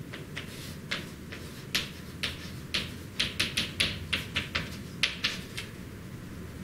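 Chalk tapping and scratching on a chalkboard as it writes: a run of quick, irregular taps, thickest about halfway through.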